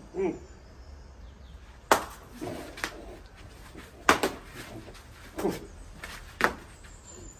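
Crusty baguettes whacked over a man's head: four sharp, crisp cracking hits about two seconds apart, the bread breaking into pieces.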